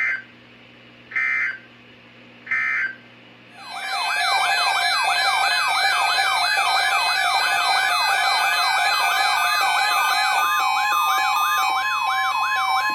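Emergency Alert System broadcast signals. It opens with three short digital data bursts (the end-of-message code that closes the marine warning), then a loud, siren-like alert tone of fast, repeated rising-and-falling sweeps layered with other tones, with a steady tone joining near the end.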